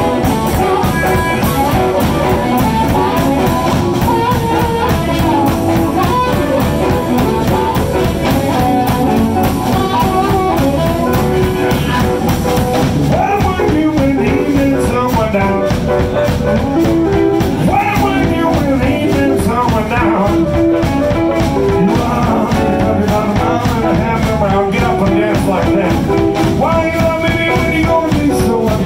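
Live blues band playing an instrumental passage, with guitar and sustained, bending lead notes over a steady rhythm section.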